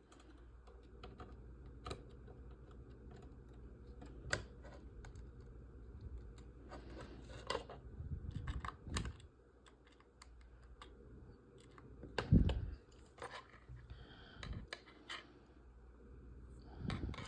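Scattered small clicks, taps and rattles of model-kit frame parts and tiny screws being handled and fitted, with a louder knock about twelve seconds in.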